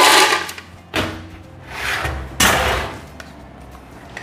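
Knocks and thumps from handling a commercial blender and its plastic parts. The loudest knock comes right at the start, a sharp click about a second in, and another knock about two and a half seconds in, with short rushes of noise between them.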